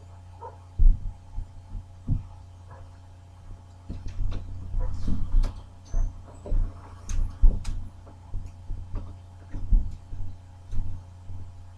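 Irregular dull thumps and knocks, with a few sharp clicks, over a steady low hum. They come most thickly from about four seconds in.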